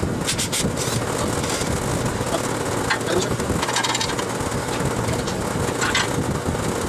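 Steady rushing noise of a large drum fan running, with a short burst of sharp clicks from a cordless impact driver near the start and a few metallic clinks and rattles of tools working on a vehicle's underside.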